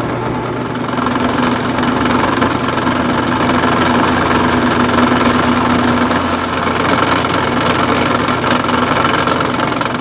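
Drill press running an end mill through a light milling pass in a small metal latch part: a steady motor hum under a continuous harsh cutting noise.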